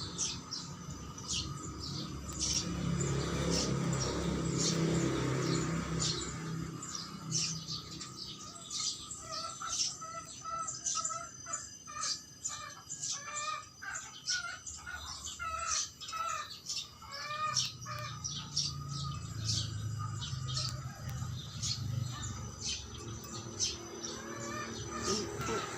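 Birds chirping, with short high calls throughout and a run of quick, evenly repeated lower notes in the middle. A low hum comes and goes underneath.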